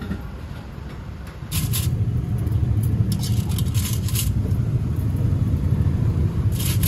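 Steel wire hooks clinking against each other and the stainless steel pot as a handful is lifted out, in a few short bursts. A steady low rumble runs underneath.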